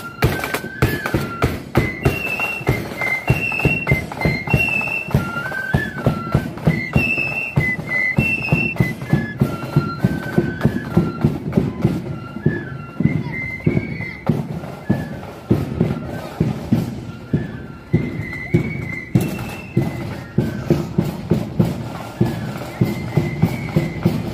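Marching flute band playing a tune: a bright flute melody over a steady beat of snare and bass drums.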